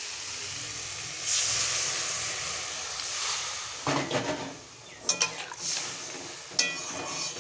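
Water poured into a hot kadai of frying masala, fish and potatoes, hissing and sizzling as it hits the hot oil, with a louder surge of hiss about a second in. Near the end a metal spatula scrapes and knocks against the pan a few times as the gravy is stirred.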